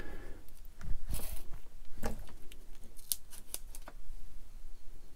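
Small plastic model parts being handled and set down on a cutting mat: a run of irregular sharp clicks and taps over the first four seconds, then quieter handling.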